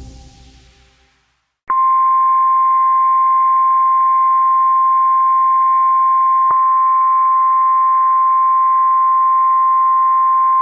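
NOAA Weather Radio 1050 Hz warning alarm tone, a single steady high tone lasting about nine seconds that cuts off abruptly; it is the alert signal that comes before a tornado warning broadcast.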